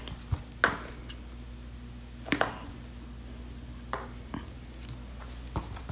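A handful of brief, soft scrapes and taps of a paintbrush pulling and dabbing oil paint on a canvas panel, over a low steady hum.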